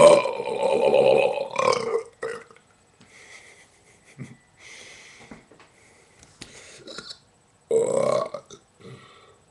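A person burping on purpose: one long, loud burp lasting about a second and a half at the start, a short one just after two seconds in, faint sounds in between, and another loud burp near the end.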